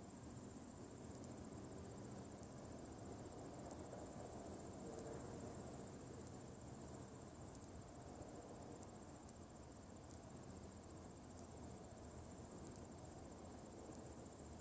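Faint low droning hum with a continuous high-pitched, finely pulsing trill above it, like a cricket, and a few faint ticks.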